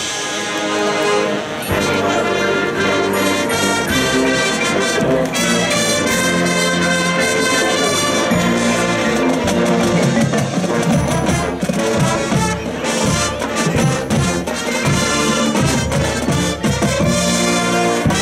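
Marching band playing: the brass section sounds sustained chords over drum and percussion hits.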